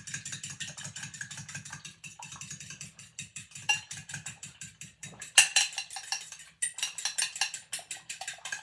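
Fork beating two raw eggs in a glass bowl: quick, even clicks of the tines against the glass, about five or six a second, getting louder a little past halfway.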